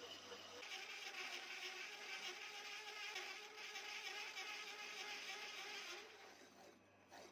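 Drill driving a large hole cutter through steel plate: a steady whine with a hiss of cutting above it, which stops about six seconds in.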